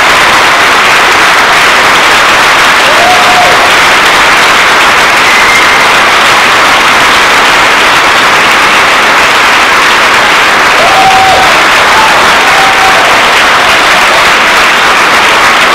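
Large audience and choir applauding in a steady, dense clapping, with a few short voices calling out over it.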